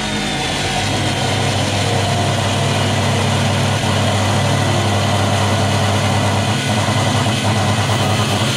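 Abrasive chop saw cutting through a length of steel: a steady motor hum under a dense grinding noise, the disc under load about a second in. The cutting disc is worn down small.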